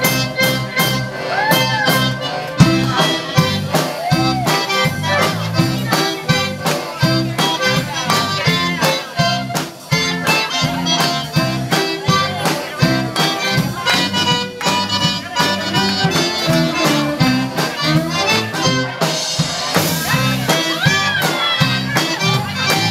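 Live Cajun dance band playing an upbeat tune: an accordion leads over guitar, with a drum kit keeping a steady, regular beat.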